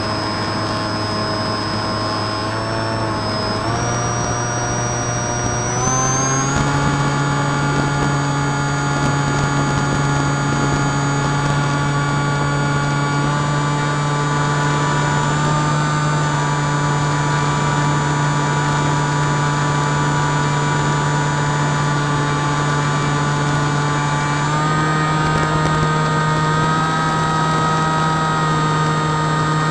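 Drifter ultralight's two-stroke engine running in flight, its pitch stepping up twice in the first six seconds, holding steady, then rising a little once more near the end.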